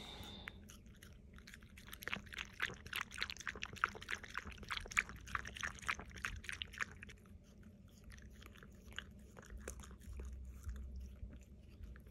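Small dog lapping liquid from a ceramic bowl: quick, rhythmic wet licks, busiest in the first half and sparser and fainter after about seven seconds.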